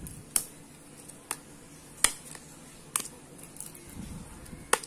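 Stiff clear plastic blister packaging being handled and flexed, giving five sharp clicks about a second apart, with a soft rustle around four seconds in.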